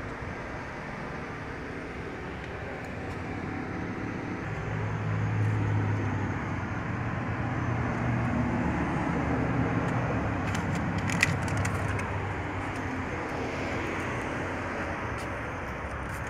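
Motor vehicle engine and traffic noise: a steady low hum that swells in the middle, with a quick run of clicks about eleven seconds in.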